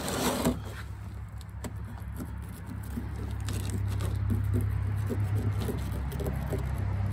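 A whiting being handled and cut with a fillet knife on a plastic cooler lid: a brief scrape at the start, then small taps and rustles. A steady low rumble runs beneath and grows a little louder partway through.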